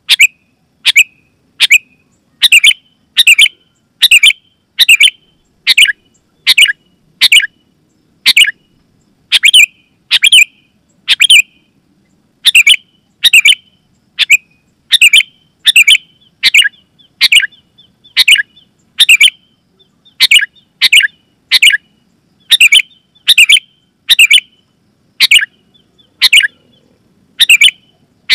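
Sooty-headed bulbul (kutilang) calling: short, loud, sharp chirps repeated steadily, about one to two a second, sometimes in quick pairs.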